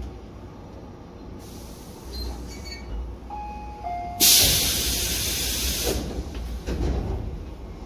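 Train stopped at a platform: a short two-note falling chime, then about four seconds in a loud hiss of compressed air from the train's pneumatic system lasting nearly two seconds, followed by a couple of knocks.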